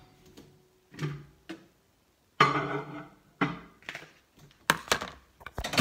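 Kitchen handling sounds as a plate goes into a microwave: a few separate knocks and clatters, the loudest with a short ring, then a quick run of sharp clicks near the end as the door is shut and the oven is set.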